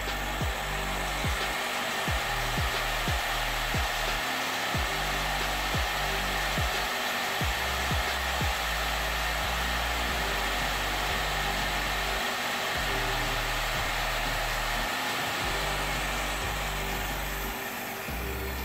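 Makita N5900B circular saw's electric motor and blade spinning freely with a steady whine, fed through an SCR voltage regulator. Background music with a beat plays underneath.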